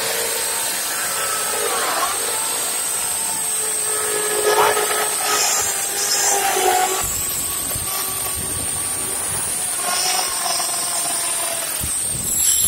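Electric drill running with a high whine, its pitch dipping and rising as the motor slows and speeds up under load. A rougher, deeper noise joins from about seven seconds in.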